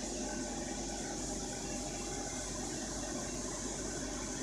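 Steady fan whir and hiss of a fiber laser marking machine's cooling running, with a low hum underneath.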